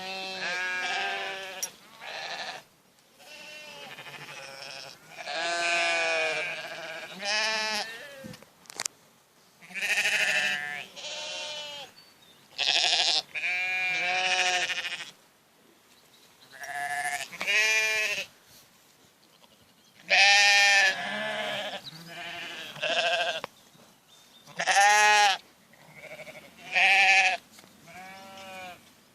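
A ewe coughing and bleating over and over, in many short calls with brief pauses between them.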